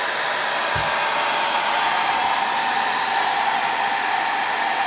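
Handheld hair dryer running steadily on a constant rush of air with a steady whine in it.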